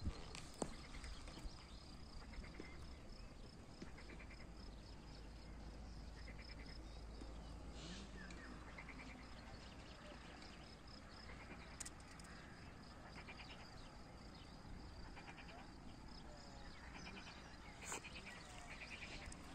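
Faint outdoor animal calls: short pulsed chirps recur every second or two, over a steady faint high-pitched pulsing and a low rumble.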